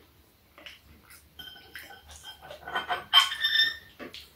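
Metal spoons and chopsticks clinking against bowls and the steel serving tray while eating. There are a few light clicks, then a sharper strike about three seconds in that rings briefly.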